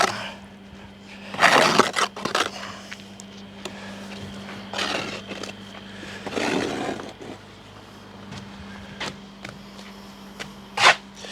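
Bricklaying work with very wet ready-mix mortar: a handful of separate scrapes and knocks, about half a second each, as a trowel works the mortar and blocks are set. A faint steady low hum runs underneath.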